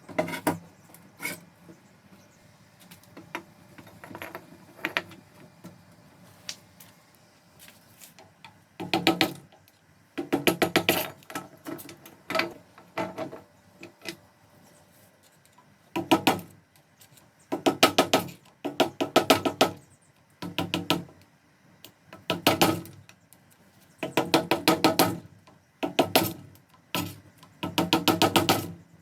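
Repeated bursts of rapid clicking or knocking, each burst lasting about a second, with short pauses between them.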